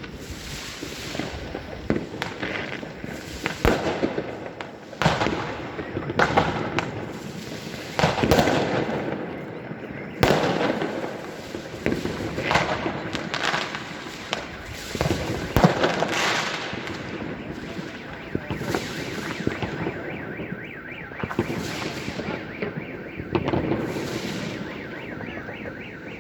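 Fireworks and firecrackers going off: an irregular, rapid series of bangs, some of them followed by a rush of crackle.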